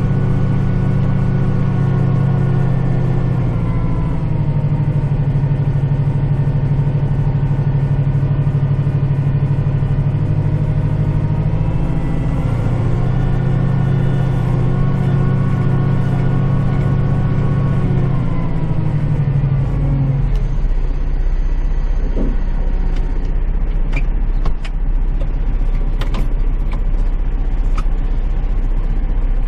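Kubota tractor's diesel engine running steadily, its speed dipping about four seconds in, rising again around twelve seconds, then falling to a lower steady idle about twenty seconds in. A few sharp clicks or knocks sound near the end.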